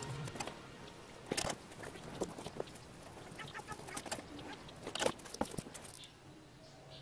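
Faint, scattered clicks and taps of small electronic parts and tools being handled on a cardboard work surface, a few sharp ones, the strongest about a second and a half in and about five seconds in.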